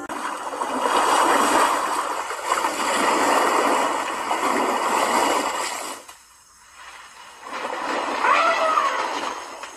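Water splashing and sloshing for about six seconds, a brief lull, then more splashing with a short call that rises and falls near the end.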